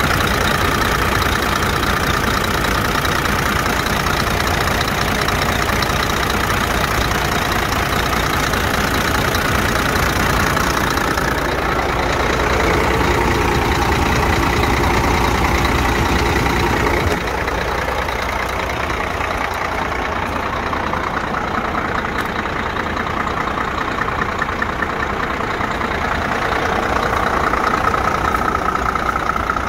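Scania P114 truck's inline-six diesel engine idling steadily. Its sound drops slightly a little past halfway.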